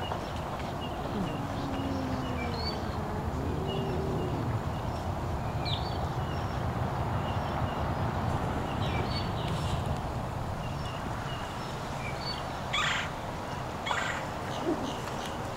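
Outdoor ambience of small birds chirping over a steady low rumble, with two short, louder harsh noises near the end.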